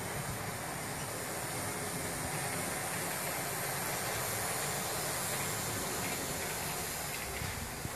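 Model Union Pacific SD45T-2 locomotive running on the layout track, pulling tank cars: a steady hissing whir of the motor and wheels rolling on the rails, with a few faint clicks near the end.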